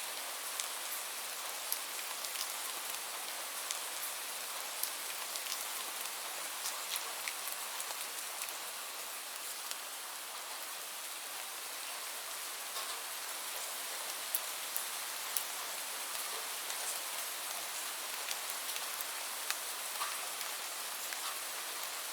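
Steady rainfall: an even hiss of rain with scattered sharp ticks of individual drops striking close by.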